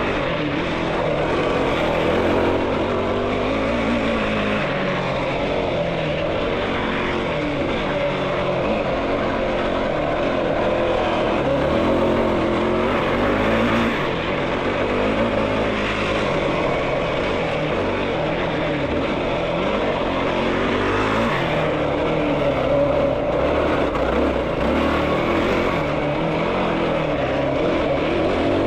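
Yamaha YFZ450R's single-cylinder four-stroke engine running under way as the quad is ridden, the revs rising and falling continuously.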